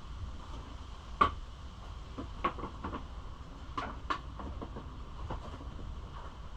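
Scattered light knocks and clicks of parts and hand tools being handled while fitting bike plastics and bolts, about half a dozen, the sharpest about a second in, over a steady low hum.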